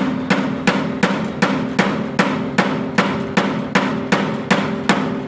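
A hammer striking steadily at about three blows a second, each blow sharp with a short ring, as when nailing timber concrete formwork.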